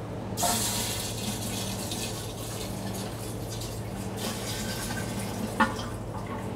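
Liquid pouring and splashing as low wines are tipped from a glass jar into a still, starting about half a second in, with a sharp knock near the end.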